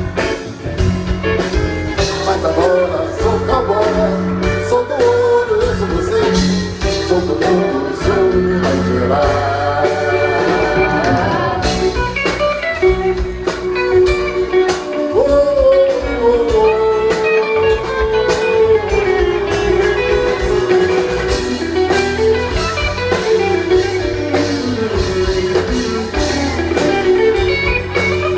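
Live band playing a rock song with a melodic lead over bass and drums, heard from within the audience.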